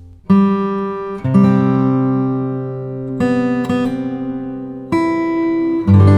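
Background music: strummed acoustic guitar chords, a new chord struck about every second and left to ring.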